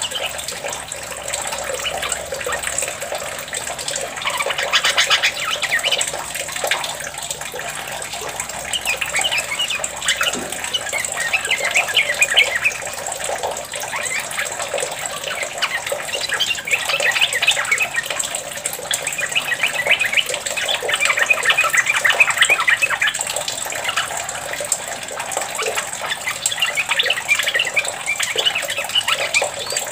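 Yellow-vented bulbul singing in bouts of rapid chattering song, about five bouts, over a steady rush of running water.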